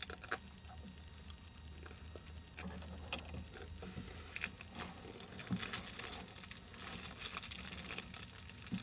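Light clicks, taps and crinkly rustles of objects being handled, scattered at first and coming thicker in the second half.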